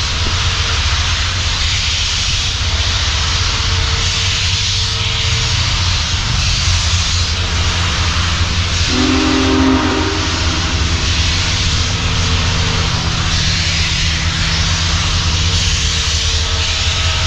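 Union Pacific Big Boy 4014 steam locomotive under way, with a steady rumble and hiss. Its whistle sounds briefly, clearest about nine seconds in.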